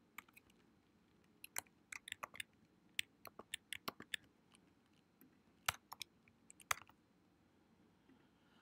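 Faint typing on a computer keyboard: irregular keystrokes in short runs, with a few sharper single clicks.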